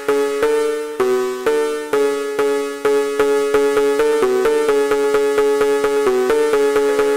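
Background electronic music: a synthesizer playing a steady run of short, evenly spaced notes.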